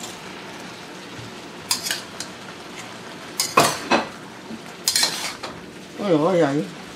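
Metal wok ladle and spatula clanking and scraping against a steel wok while squid and vegetables are stir-fried, over a low steady hiss of frying. The loudest clanks come about halfway through, and a brief wavering tone sounds near the end.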